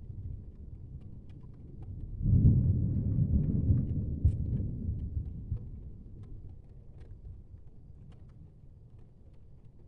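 Thunder: a low rumble that rises suddenly about two seconds in and dies away over the next few seconds.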